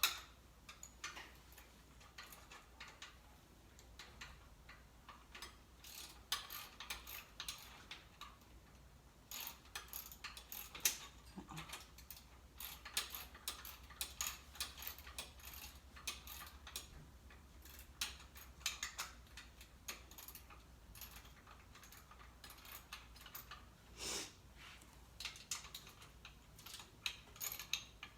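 Hand socket ratchet clicking in short irregular runs as bolts are tightened down.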